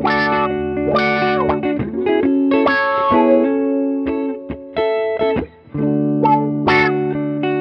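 Electric guitars playing together, at least one through an Analog Man Block Logo envelope filter (auto-wah) pedal. Picked notes and chords open with a wah-like sweep of the tone that settles as the notes sustain.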